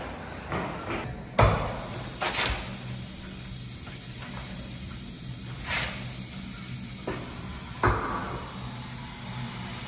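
Water running from a chrome push tap into a ceramic basin, a steady hiss that starts with a sharp knock about a second and a half in. A few more short knocks follow.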